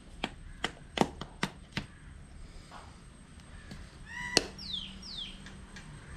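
About six sharp clicks or taps in quick, uneven succession over the first two seconds. Later a bird gives a short chirp and then two falling calls.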